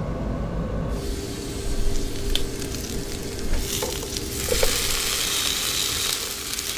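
Sliced potatoes and bacon sizzling in bacon fat in a frying pan, getting louder a few seconds in. Metal tongs click a few times against the pan as the slices are turned.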